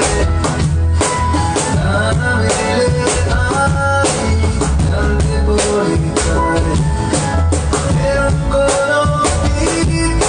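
Song music with a drum kit keeping a steady beat over a strong bass line and sustained melodic instruments.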